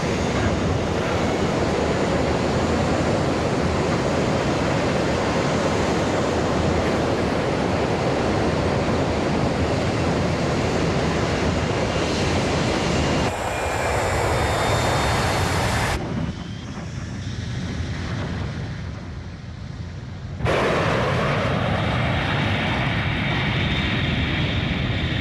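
Airliner engine noise during takeoff, a steady loud rush. The sound changes abruptly about 13 seconds in, then drops to a quieter level from about 16 to 20 seconds before the full rush cuts back in.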